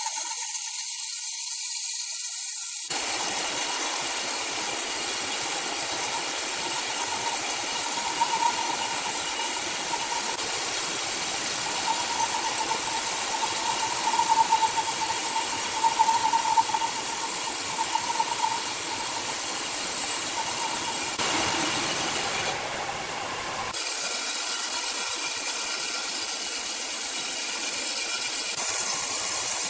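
Sawmill machinery running: a steady mechanical noise with a high hiss and a wavering whine, changing abruptly about three seconds in and again after about twenty seconds.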